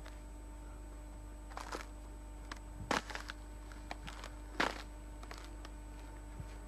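A few slow, irregular footsteps crunching in fresh snow, over a steady background hum.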